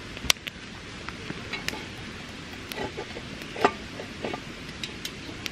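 Small wood campfire in a stone ring crackling: sharp pops at irregular intervals over a low steady hiss, the loudest pop about a third of a second in. A few duller knocks come in the middle.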